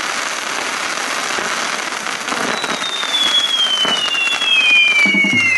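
Fireworks castle burning: a dense, steady crackle and fizz of sparks from spinning pyrotechnic wheels. A high whistle joins about two and a half seconds in and slowly falls in pitch.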